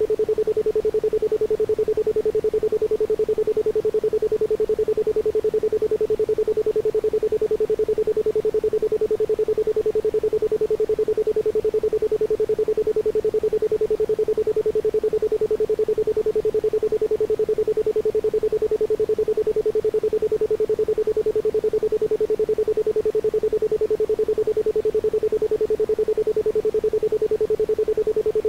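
Isochronic tone: a steady 432 Hz pure tone switched on and off in rapid, even pulses, with no other sound.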